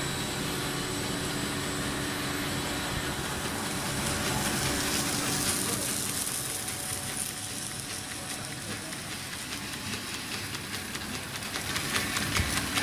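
Twin-screw snack food extrusion line running: a steady machine hum with a hiss over it. Near the end a fast, regular ticking starts.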